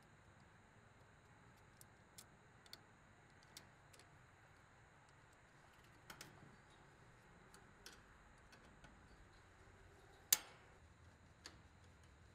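Faint, scattered metal clicks of a nut driver working the screw on the filter drier's mounting bracket, with one sharper click about ten seconds in.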